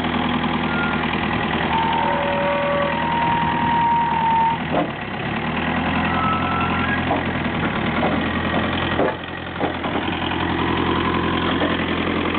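Perkins four-cylinder mechanically injected diesel engine of a JCB 208S skid steer backhoe running steadily. A few brief high whines and several knocks sound over it, with a short drop in engine sound just after the middle.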